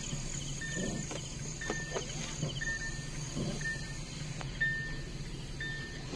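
Steady low engine drone heard from inside a car under tow, with a short high beep repeating about once a second. Faint insect trilling runs underneath.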